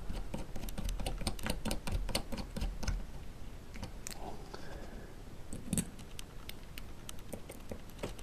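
Small metal clicks and taps of a hand screwdriver and small screws being fitted into a brushless camera gimbal frame, irregular and fairly rapid.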